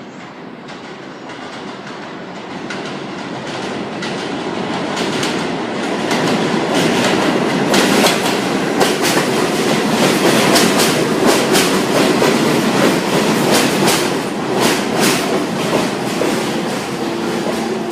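New York City Subway train coming in, growing louder over the first six seconds or so. It then runs loud for about ten seconds with wheels clacking over rail joints, easing slightly near the end.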